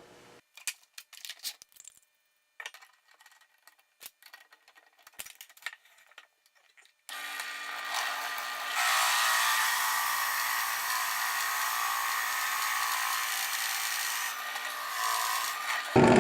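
A few light handling clicks, then a drill press motor starts about seven seconds in; about two seconds later the bit begins boring into a wooden block and cuts steadily until near the end.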